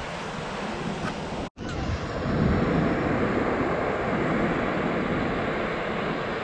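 Wind buffeting the microphone over the wash of gentle surf. The sound cuts out for an instant about a second and a half in, then comes back slightly louder.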